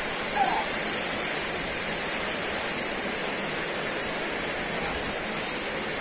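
Steady, even hiss of background noise, with a brief faint sound about half a second in.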